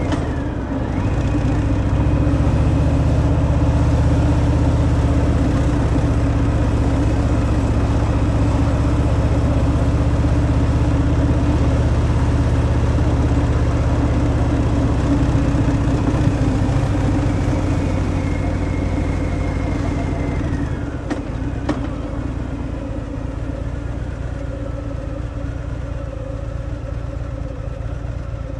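Stock Harley-Davidson Fat Boy's V-twin engine running on the road through its stock exhaust. It pulls steadily after a brief dip at the start, then about 21 seconds in it eases off to a lower, quieter running sound.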